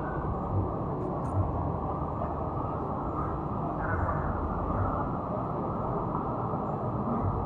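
Steady low rumble of outdoor city background noise.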